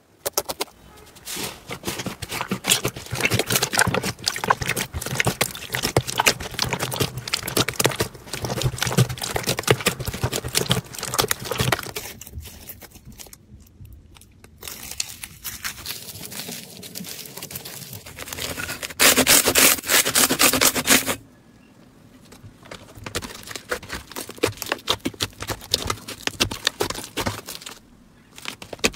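Slime being pressed, poked and stretched by hand: dense crackling and clicking with scraping sounds. There is a louder two-second stretch of crackling about two-thirds of the way through.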